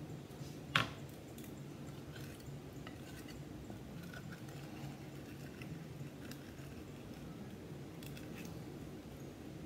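A knife blade scraping homemade watercolour paint across a glass slab, in faint, scattered strokes, with one sharp click about a second in.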